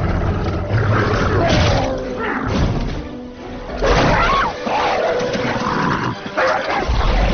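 Film soundtrack: a dramatic score under the snarls and roars of mutant monster dogs, with a woman's frightened cry about four seconds in.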